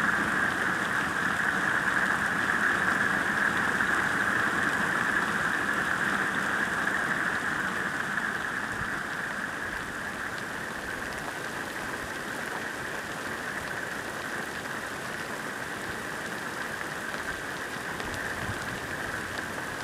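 Steady rain falling, a little softer from about halfway on.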